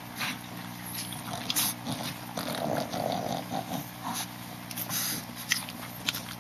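Boston terrier puppy and dogs making small snuffling and grunting noises, with scattered light clicks. The noises are loudest around the middle.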